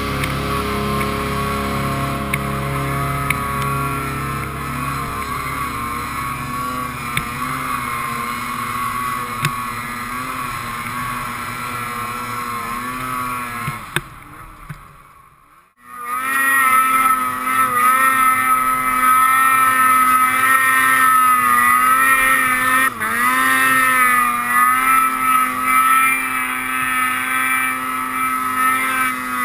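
Ski-Doo Summit X snowmobile's two-stroke engine running at a steady pitch as the sled ploughs through deep powder. About halfway through the sound fades almost to nothing, then comes back louder and holds steady.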